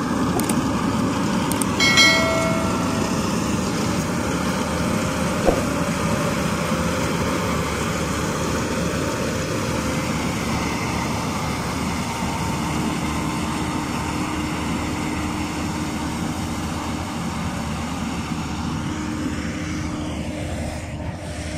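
Case IH self-propelled windrower mowing grass, its diesel engine and cutting header running steadily and growing slowly fainter as it moves off. A short high chirp sounds about two seconds in.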